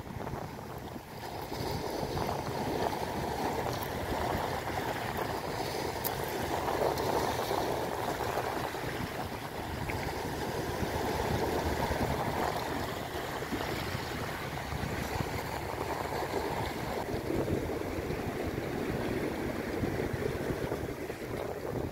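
Sea surf washing against rocks, a steady rush that swells and eases slightly.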